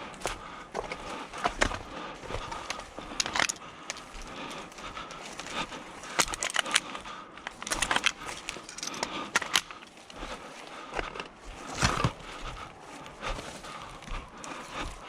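Irregular sharp clicks and knocks, a dozen or so spread unevenly, over a faint background hiss.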